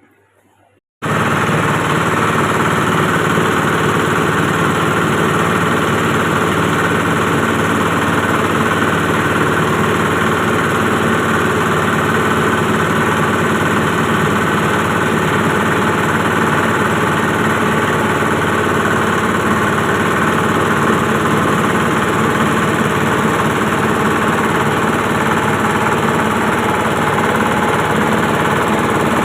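Rice husk grinding machine running steadily at full speed, a loud unbroken mechanical noise that cuts in abruptly about a second in.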